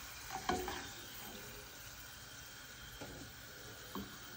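French fries frying in a small pan of oil with a faint sizzle, stirred with a slotted spatula that scrapes or knocks against the pan a few times.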